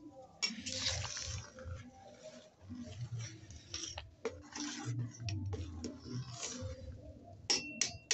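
Steel ladle stirring thick, soupy khichdi in a steel pot: irregular wet sloshing and scraping, with a couple of ringing metal clinks of the ladle against the pot near the end.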